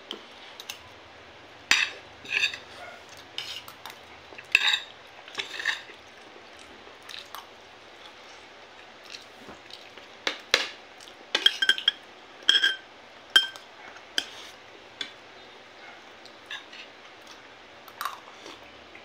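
Spoon and fork clinking and scraping against a ceramic plate and a glass bowl while eating, in scattered sharp taps, with a cluster of ringing clinks about eleven to thirteen seconds in.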